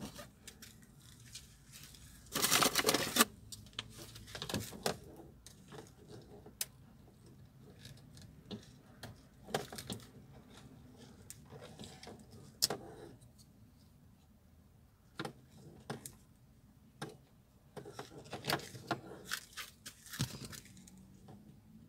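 Hands working on car door plastic trim and tweeter wiring: scattered clicks, taps and rustles, with one louder rustle lasting under a second about two seconds in.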